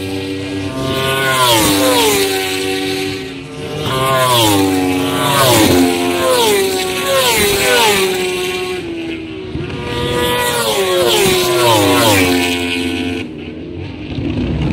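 Racing motorcycles at full throttle passing one after another, each engine's high-revving note dropping sharply in pitch as it goes by. The noise falls away about a second before the end.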